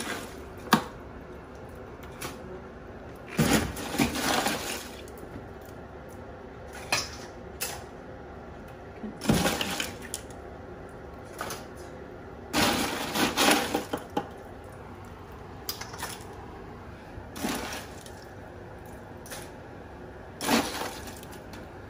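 Metal kitchen tongs digging through ice and blue crabs in a plastic cooler: short bursts of clattering ice and shells, several times a few seconds apart.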